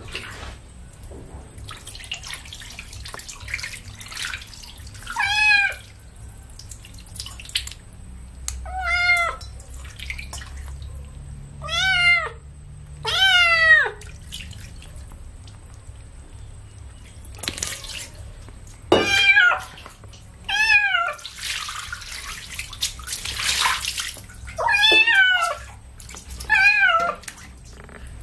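Kitten meowing over and over while being bathed, about nine short calls, each falling in pitch. Between the calls comes the splash of water being poured over it.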